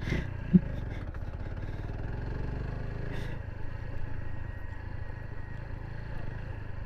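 Motorcycle engine running steadily, a low even rumble.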